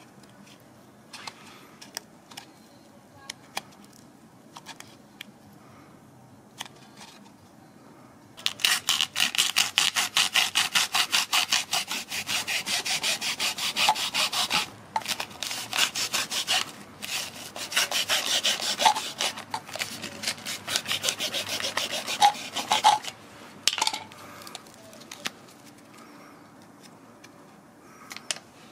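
Hacksaw cutting across a small cartridge filter of pleated paper with metal end caps, in fast back-and-forth strokes with two brief pauses. Light handling clicks come before it, and the sawing stops a few seconds before the end.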